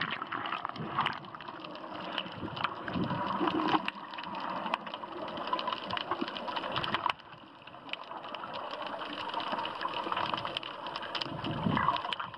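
Muffled water noise picked up by a camera underwater: a steady rushing and gurgling with many scattered clicks. It drops quieter for a moment about seven seconds in.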